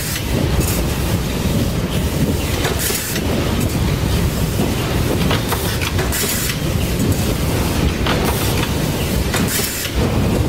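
Spoon-making factory machines running: a steady, clattering mechanical rumble, with a short sharp hiss breaking in every second or two.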